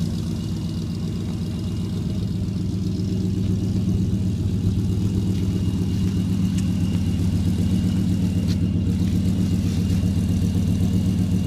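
Supercharged 5.7 L Hemi V8 of a 2008 Dodge Ram 1500, with a ProCharger, long-tube headers and Magnaflow dual exhaust with an H-pipe, idling at the tailpipe. It is a low, steady, even idle with no revving.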